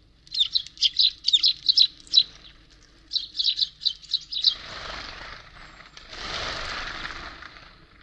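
Small songbirds at a seed feeder give quick, high chirps, several a second, in two bouts. These are followed by two stretches of soft rushing noise, the second lasting about two seconds, near the end.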